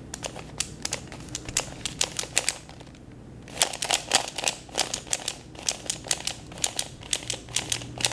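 A plastic speed cube being turned by hand, its layers clicking as they snap into place, which the owner puts down to ball-bearing positioning. The clicks come quickly, about four to six a second, with a short pause about three seconds in.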